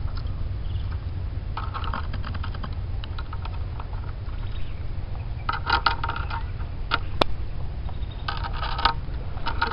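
A fishing rod tip pushed through dry grass and along concrete, giving short bursts of crackling rustle and scraping, three times, with one sharp click near the end, over a steady low rumble.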